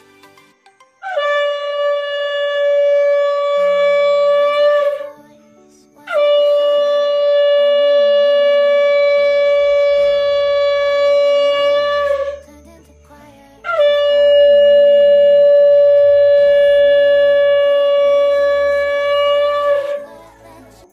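Conch shell (shankha) blown in three long blasts, each held on one steady note after a brief upward scoop at the start, with short breaks for breath between them. It is the ritual conch sounding of a Hindu puja.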